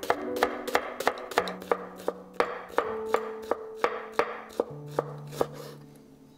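Chef's knife chopping a shallot on a wooden cutting board: a steady run of sharp knocks of the blade on the board, about three a second, stopping shortly before the end.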